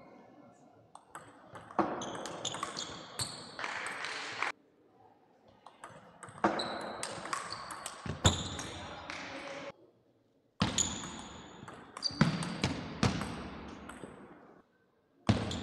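A plastic table tennis ball clicking sharply off bats and bouncing on the table in quick rallies, three stretches of rapid clicks that cut out abruptly between them, with short high squeaks mixed in.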